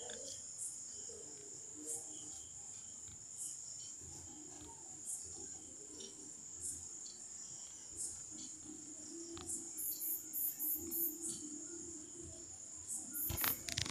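Faint, steady, high-pitched trilling of crickets, with a low hum coming in about two-thirds of the way through and a few clicks near the end.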